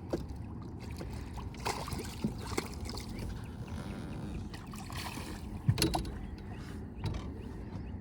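Water and wind noise around a small anchored fishing boat, with a few sharp knocks, the loudest about two-thirds of the way through.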